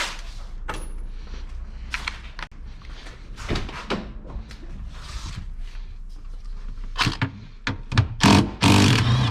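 Metal hand tools clinking and knocking as sockets are picked out and fitted to the seat bolts, with a louder run of rattling and scraping in the last couple of seconds.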